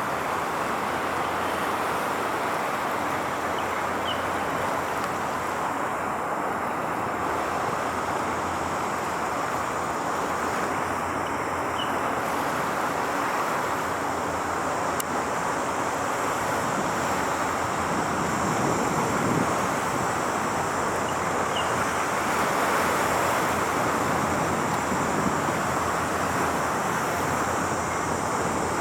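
Steady outdoor roar of distant road traffic mixed with wind on the microphone, with one vehicle swelling louder about two-thirds of the way through.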